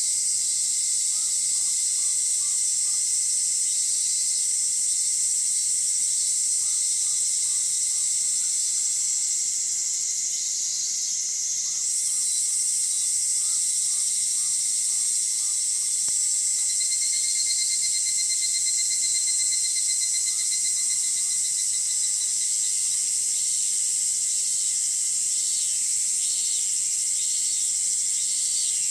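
A dawn chorus of cicadas and crickets: a dense, steady, high-pitched shrill. A pulsing cicada call joins in for a few seconds past the middle, and a run of repeated short notes comes near the end. Faint distant bird notes sound in the first half.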